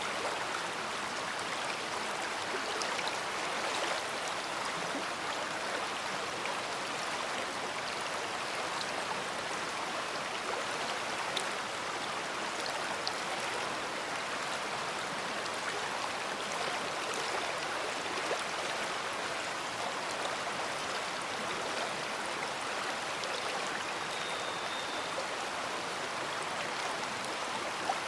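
A big river flowing: a steady, even rush of water with small splashes and clicks in it.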